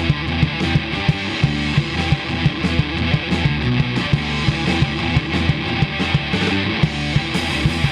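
Rock trio playing: electric guitar, bass guitar and drums over a steady beat.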